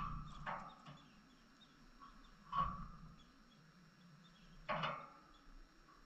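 Canaries moving about a wire cage: a few short sharp taps and rustles, near the start, about two and a half seconds in and near five seconds, with faint high cheeps in between.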